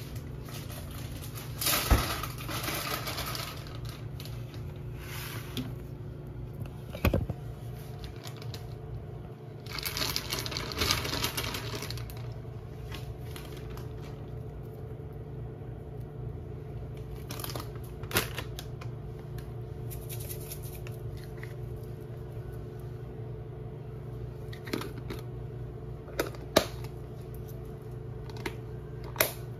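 Kitchen handling noises: paper rustling under a pile of fried chicken tenders as shredded cheese is sprinkled over them by hand, with a few sharp light knocks, over a steady low hum.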